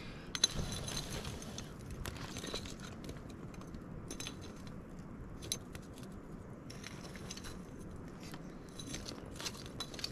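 Kitchenware being handled: scattered light clinks and rattles, the sharpest about half a second in, with bunches of them around the middle and near the end.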